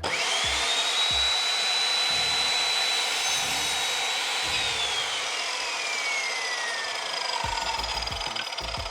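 Electric chop saw (mitre saw) switched on and cutting a timber floor noggin: the motor spins up to a steady high whine within a fraction of a second and runs for about four and a half seconds, then is released and winds down, its pitch falling over the next three seconds.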